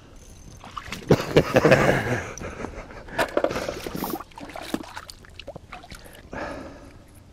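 Water splashing and sloshing in an ice-fishing hole as a small brook trout is pulled up through it and handled, with sharp clicks mixed in; loudest about a second in, with smaller splashes later.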